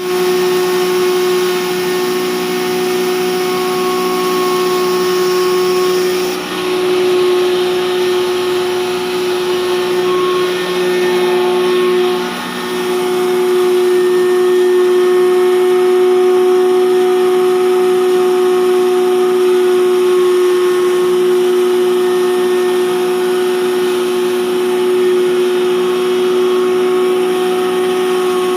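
Industrial masala grinder running steadily: a constant motor whine over a rushing noise, dipping briefly twice, about six and twelve seconds in.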